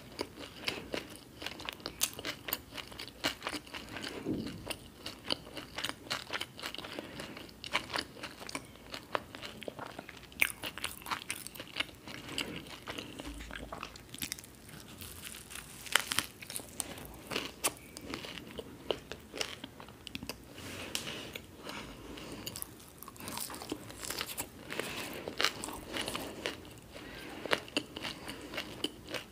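Close-miked eating of a toasted bread sandwich stuffed with crispy onion bhajiya fritters: bites into the sandwich and chewing, with many sharp crisp crunches throughout.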